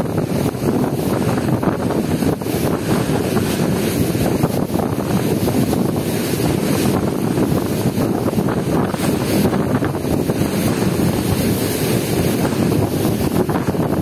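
Loud, steady rushing of a fast-flowing river churning into white water, an even roar with no breaks.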